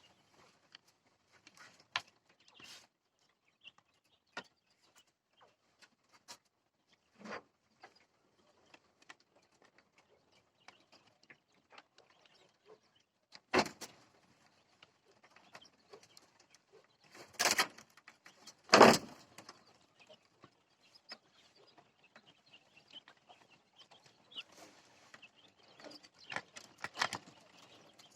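Jumbo quail moving about in their cage: scattered light taps and scratches, with a few louder sudden knocks about halfway through.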